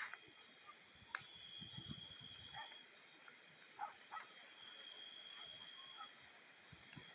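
Insects trilling steadily in high, constant tones, with a few sharp crackles from the burning wood bonfire, one about a second in.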